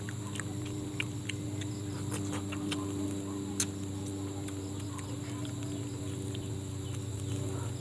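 Scattered wet mouth clicks and smacks of someone eating grilled tilapia picked off the bone, one sharper click about three and a half seconds in. Behind it runs a steady low hum and a steady high-pitched drone.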